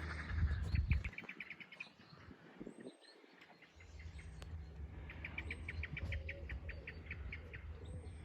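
A small songbird sings fast twittering trills, a short phrase about a second in and a longer one in the second half, with a few thin high chirps. A low rumble lies underneath.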